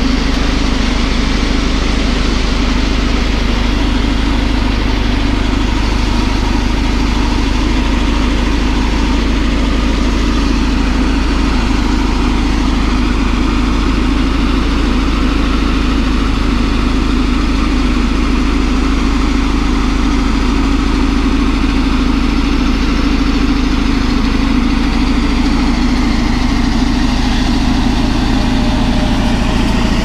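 Caterpillar D11 bulldozer's diesel engine running steadily and loudly as the blade pushes a load of ripped soil and sandstone.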